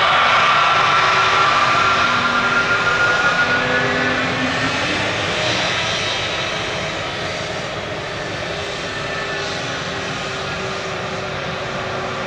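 Airbus A320neo turbofan engines at taxi power as the jet rolls past close by: a broad rush with several steady whining tones, loudest in the first few seconds and then slowly fading.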